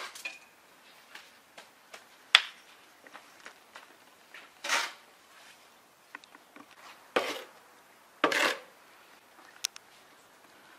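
A steel shovel scraping into sandy soil and throwing it, several separate strokes a couple of seconds apart, with one sharp knock about two seconds in.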